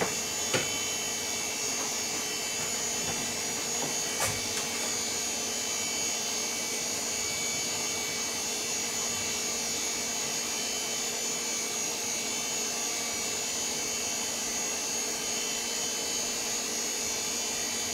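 VAX 4000-100A minicomputer running with a steady whir of its cooling fans and a high, steady tone above it. A few faint clicks come near the start and about four seconds in.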